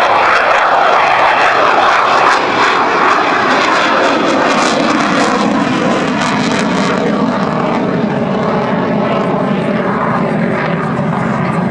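Saab JAS 39 Gripen fighter's single Volvo RM12 turbofan roaring loudly in a display pass, with crackle through the middle. The sound deepens slightly as the jet draws away.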